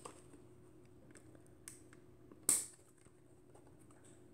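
Small clicks from handling a SEM Semflex twin-lens reflex camera, with one sharper, louder click about two and a half seconds in.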